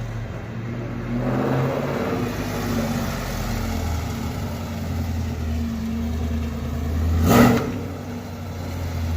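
An LS1 5.7-litre V8 in a Camaro Z28, breathing through freshly installed long-tube headers, running with a steady low drone; it rises briefly about a second in. About seven and a half seconds in there is a short, sharp, loud burst, the loudest moment.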